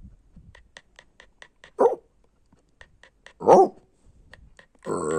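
Pocket bully dog breathing hard in quick, even pants, about six a second, with three short barks, the last near the end.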